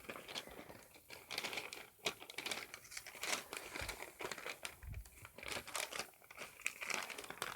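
Crinkling and rustling of something being handled, with small irregular crackles and clicks throughout.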